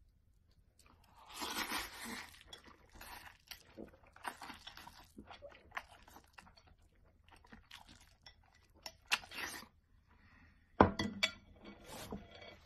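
Close-up eating sounds of a person eating noodles: irregular bursts of slurping and wet chewing, with a few sharp clicks, the loudest about eleven seconds in.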